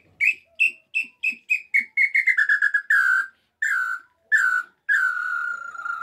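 Hand-held wooden tinamou call (pio) blown to imitate the small-billed tinamou (pé-vermelho, inhambu-chororó): a run of short whistled notes that quicken and step down in pitch, then a few longer notes and a final drawn-out note sliding low. The call reaches the low closing note (the "grave") cleanly.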